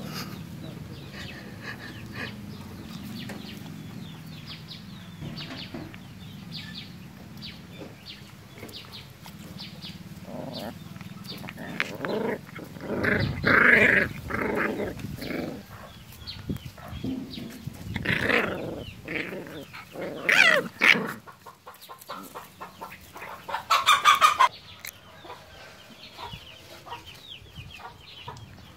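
Short, repeated farmyard animal calls, in louder bunches around the middle and once more about three quarters through.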